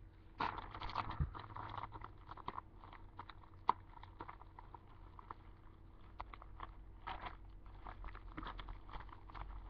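Crinkling and rustling of packaging being handled, with many small clicks and crackles. The bursts come about half a second in and again around seven seconds.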